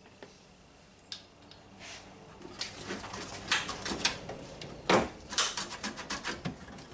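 Plastic clips being popped off a car's upper radiator support, with small metal and plastic parts clicking and rattling in the hands. It starts as a couple of single clicks and gets busier after about two seconds, with the loudest snap about five seconds in.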